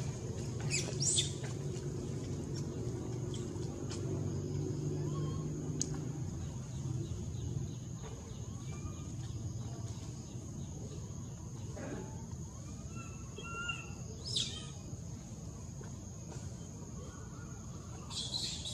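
Outdoor background sound: a steady low hum that fades out about halfway through, a faint steady high-pitched tone, and a few brief, high falling chirps about a second in, in the middle and near the end.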